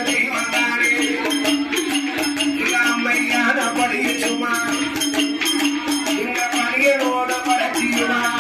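Villupattu folk music: a fast, even jingling beat from bells and percussion, over a steady drone and a winding melody line.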